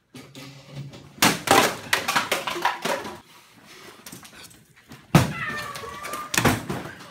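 Young people's voices wailing and crying out in mock despair, with a few loud thumps: one about a second in and two near the end.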